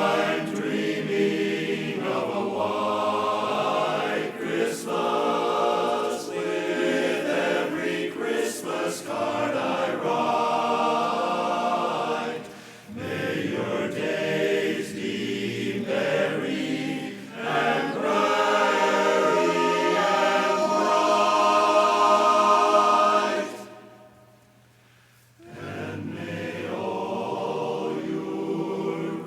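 A cappella barbershop chorus singing in close harmony. The singing breaks off about 24 seconds in, then comes back in a second and a half later.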